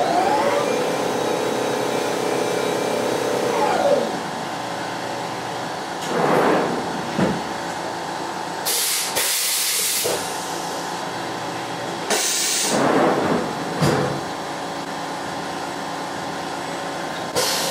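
Tormach 1100MX CNC mill running its program. The spindle whines up to speed at the start and winds down about four seconds in. Several sharp hisses of compressed air follow as tools are changed, over a steady machine hum.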